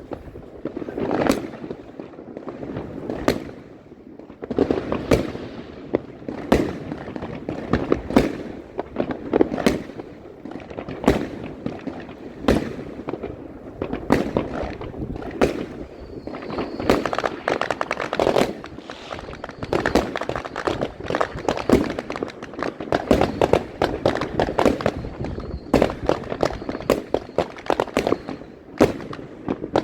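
Fireworks going off in a dense, irregular run of sharp bangs, often several a second, with crackle and rumble between them. A faint, steady high whistle is heard twice, about halfway through and near the end.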